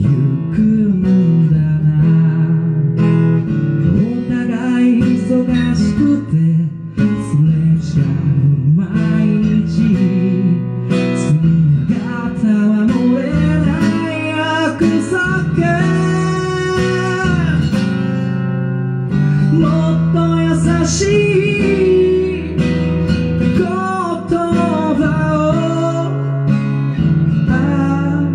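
A man singing over his own strummed acoustic guitar in a live solo performance.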